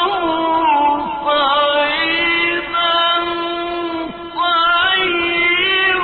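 Male reciter chanting the Quran in a slow, melodic style, holding long ornamented notes with a few brief breaks between phrases.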